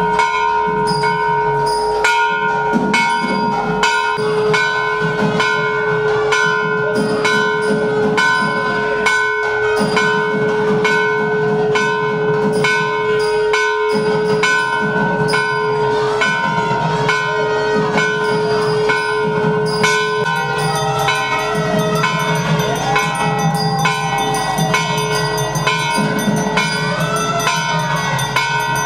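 Temple bells clanging rapidly and without pause, over a steady held pipe-like tone. At about twenty seconds in the held tone stops and a wavering, gliding melody takes over beneath the bells.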